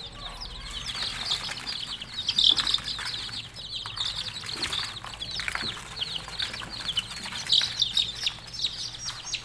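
A brood of week-old chicken chicks peeping continuously, many short high chirps overlapping.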